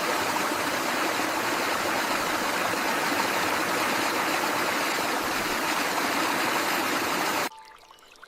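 Steady rushing water, an even noise without any pitch, that cuts off suddenly near the end.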